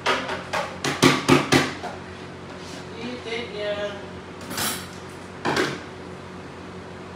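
Hard plastic bowls clicking and knocking together in a quick run of about half a dozen sharp clacks as they are pulled apart from a stack, followed a few seconds later by two short rustling scrapes.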